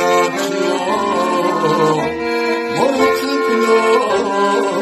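Chromatic button accordion playing a melody over held chords, with a man singing along.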